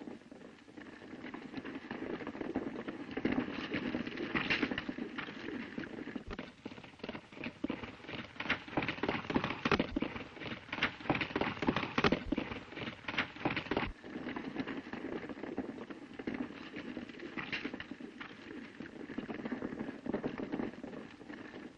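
Horses galloping on dirt: a fast, dense patter of many hoofbeats from a group of riders, loudest in the middle and easing off a little near the end.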